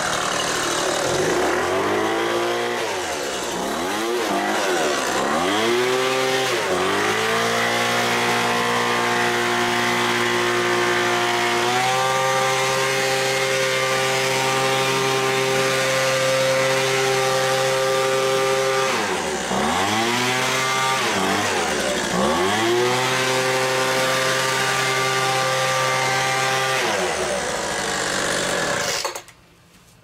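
Poulan Pro 200 MPH handheld leaf blower's two-stroke engine running, blipped up and down several times, then held at high speed with two brief drops, winding down and stopping about a second before the end. It runs well now that its loose cylinder head has been tightened.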